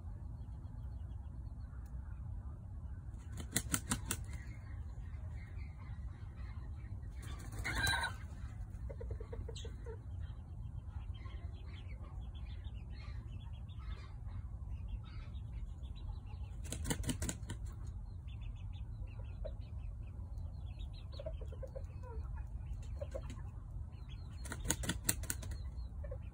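Serama rooster flapping its feathers in three short, rapid bursts about a second each, spread across the stretch, with a brief call about eight seconds in and a few soft clucks in between.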